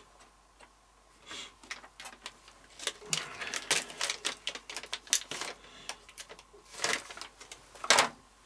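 Handling noise from unpacking a hard drive: crinkling of its foil anti-static bag with scattered small clicks and knocks, the loudest crinkle near the end.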